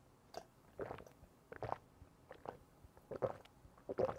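A person gulping cola from a glass: a regular series of about six swallows.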